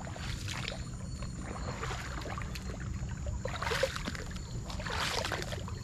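Coracle paddle dipping and pulling through calm river water, a splashy swish about every second or so, with light trickling between strokes over a low steady rumble.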